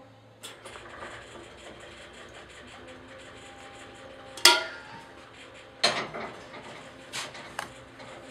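Kitchenware being handled on a table: several sharp clinks and knocks of glass and hard containers, the loudest about four and a half seconds in and ringing briefly, with further knocks near the end.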